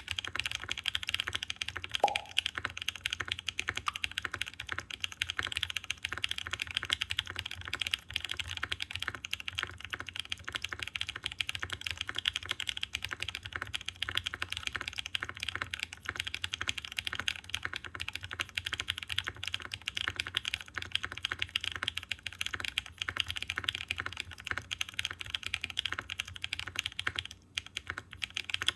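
Continuous typing on a Mode Envoy mechanical keyboard fitted with factory-lubed BSUN Taro N Sweet Potato linear switches (LY stem and bottom housing, POK top housing, 60 g spring), on a POM plate with no foam and GMK keycaps. A deeper, fairly quiet key sound for a mechanical keyboard, with a brief pause in the typing near the end.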